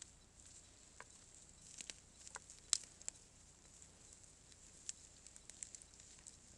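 Wild boars rooting and feeding right beside the camera: faint rustling with scattered short clicks and ticks, the loudest a sharp click a little under three seconds in.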